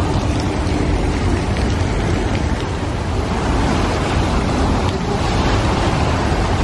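Steady rush of churning water as a round raft boat runs down a water-ride slide into its splash pool, with wind rumbling on the microphone.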